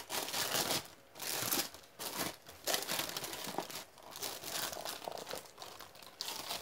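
Tissue paper crinkling and rustling as it is handled and unfolded, in irregular bursts with brief pauses.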